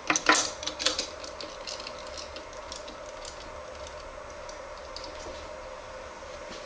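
Metal clicks and clacks as a steel mold block is fitted and seated by hand on a desktop injection molding machine: a quick cluster in the first second, then sparse lighter ticks. A steady whine from the machine runs underneath.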